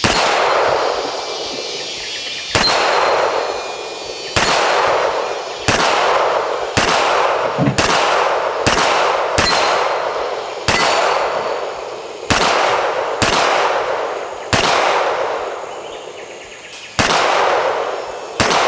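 Handgun shots fired one at a time, about fourteen in all, each with a long echoing tail. They come at an uneven pace, quickest in the middle at about one a second.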